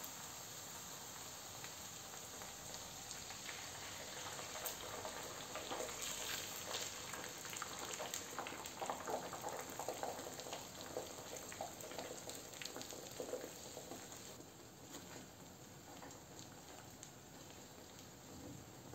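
Sausage slices sizzling and crackling in hot oil in a frying pan. Beaten eggs are poured in around the middle, where the crackling is busiest and loudest, and it eases to a softer sizzle over the last few seconds.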